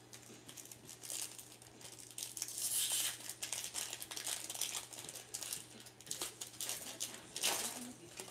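Foil trading-card pack wrapper being torn open and crinkled by hand, in bursts of crackling, loudest about three seconds in and again near the end.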